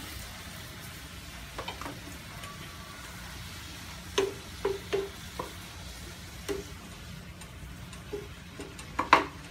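Sliced bitter gourd (ampalaya) sizzling steadily in a frying pan while a spatula stirs it, with sharp irregular knocks and scrapes of the spatula against the pan, the loudest near the end.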